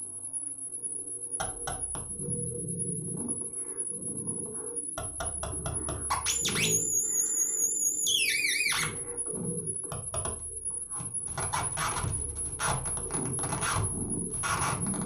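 Live electronic music from patched synthesizer and effects electronics: a high, wavering whistle-like tone held throughout over crackling clicks and bursts of rough noise. From about six and a half seconds in, two more warbling high tones sound together and slide downward just before nine seconds.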